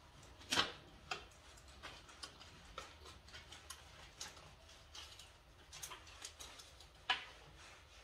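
Light, irregular clicks and taps of hands working metal fittings on boiler pipework, with two sharper knocks, about half a second in and near the end.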